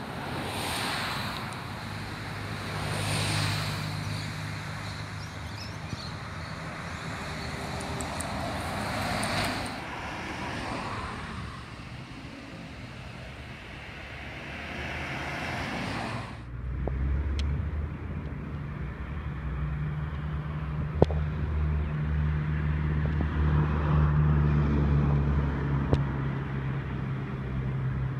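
Road traffic with cars and route buses passing, tyre noise swelling and fading over a low engine hum. After a sudden cut about 16 seconds in, a bus's engine drone grows louder as the bus approaches.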